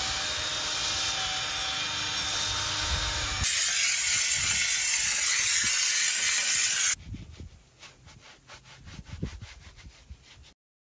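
A cordless drill spins a brush attachment against a soapy carpet floor mat, then a steam cleaner hisses loudly as it blasts a car's center console, then a hand brush scrubs foamy cleaner on a leather armrest in quick strokes, about four a second. The steam hiss is the loudest part, and each change comes abruptly.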